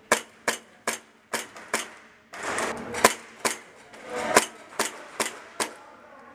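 Airsoft gun fired semi-automatically: sharp single cracks about two or three a second, in two runs separated by a short pause about two seconds in.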